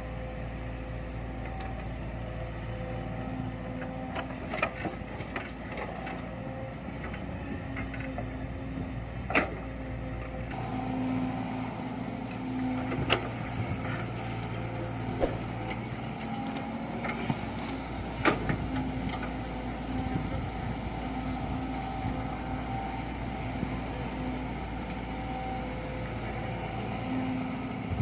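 Heavy construction machine's engine running steadily, with a few sharp metallic knocks now and then.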